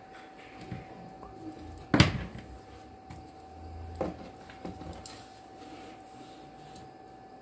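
A scale model truck chassis with its axles and suspension is handled and turned over: a sharp knock about two seconds in, the loudest, another knock about four seconds in, and lighter clatter of the plastic parts between.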